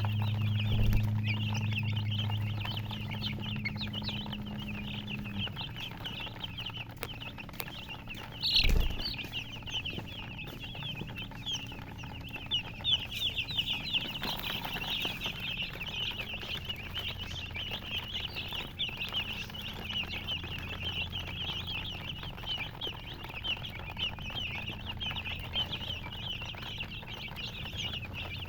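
A brood of baby chicks peeping nonstop, many short high chirps overlapping. A low hum runs under them for the first few seconds, and there is a single thump about nine seconds in.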